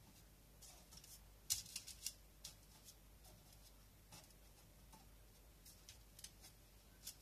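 Faint, scattered light taps and papery rustles of parchment paper and a metal baking tray as dough rolls are set down and nudged on it, the loudest few coming about a second and a half in.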